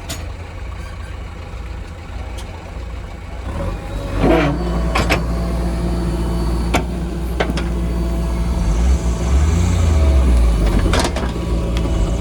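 Heavy diesel engine running, rising in pitch and getting louder about four seconds in and then holding at the higher speed, with several sharp knocks over it.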